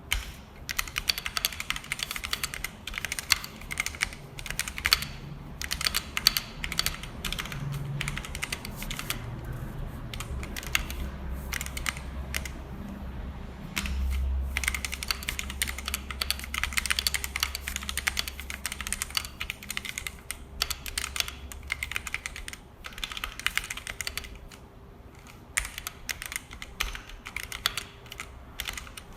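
Typing on a Vortex VX5 Pro 60% mechanical keyboard with stock linear Outemu red switches, XDA PBT keycaps and an aluminium case. Rapid runs of keystroke clacks are broken by a few short pauses. A faint low hum sits underneath.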